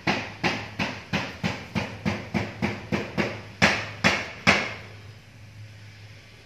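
A rapid, even series of about fourteen sharp taps or knocks, roughly three a second, the last three the loudest. They stop about four and a half seconds in.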